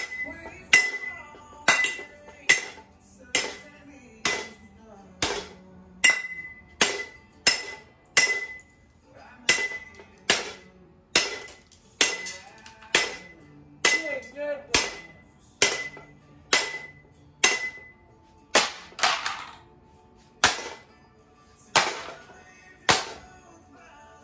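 Repeated hard blows on an object being smashed, about one every three-quarters of a second, many with a short metallic-sounding ring, over background music.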